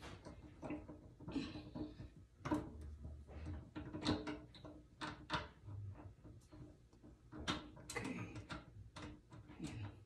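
Irregular clicks, knocks and light rattles of small fittings and screws being handled and fitted by hand under a kitchen sink.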